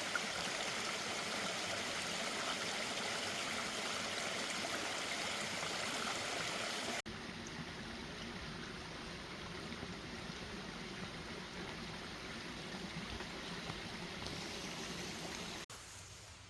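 Mountain valley stream, a steady rush of flowing water. It drops suddenly to a quieter flow about seven seconds in, and falls away to a faint hiss near the end.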